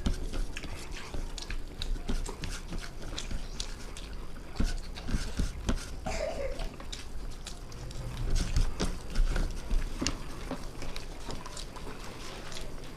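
Two people eating fast: chewing and mouth smacks with many scattered clicks and taps of food being scooped from plates.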